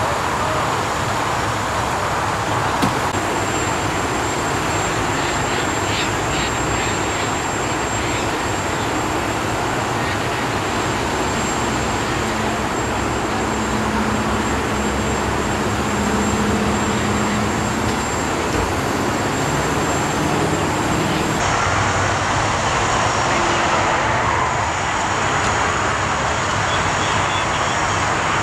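Steady highway traffic noise from vehicles going by on the open lanes, with a low hum for a few seconds about halfway through.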